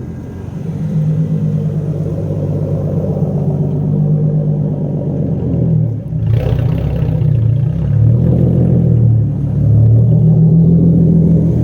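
Car engine and exhaust running with a low drone whose pitch shifts up and down as the car is driven, growing louder through the stretch.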